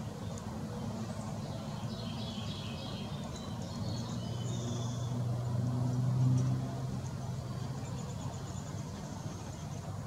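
Low rumble of a passing motor vehicle, swelling to a peak about six seconds in and then fading, under small birds' high chirps and twitters in the first half.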